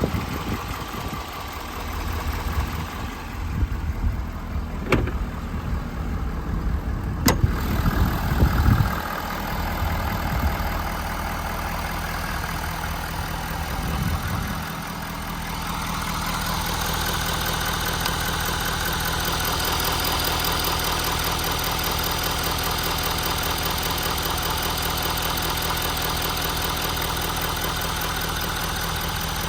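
A 6.7-litre diesel truck engine running. It is uneven for the first several seconds, with two sharp clicks, then settles from about fifteen seconds in into a steady drone with a higher whine over it.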